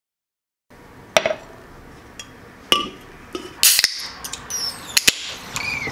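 A moment of silence, then a metal beer can and a pint glass knocked and clinked on a stone countertop. About three and a half seconds in comes a sharp hiss as the can's tab is cracked open, followed by a few more clinks.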